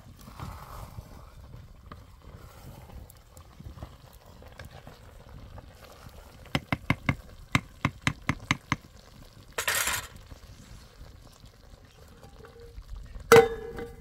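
Wooden spoon stirring a metal cooking pot and knocking against it in a quick run of about ten taps, followed by a short scrape. Near the end a metal pot lid clangs down once and rings briefly.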